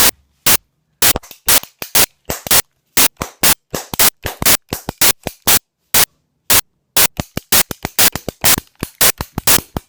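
Toy cap gun firing caps in quick succession: a long string of sharp pops, about two to four a second.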